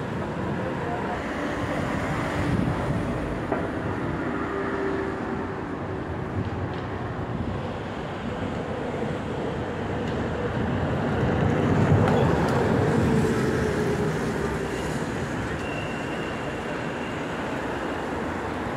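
City street traffic: the steady hum of buses and other vehicles. It swells as a vehicle passes close about twelve seconds in, then eases back.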